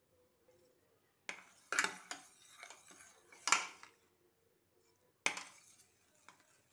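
A steel spoon scraping and clinking against a stainless steel pan while stirring cooked sago pearls and condensed milk. A run of short knocks and scrapes begins just over a second in and lasts to about four seconds, with one more a little after five seconds.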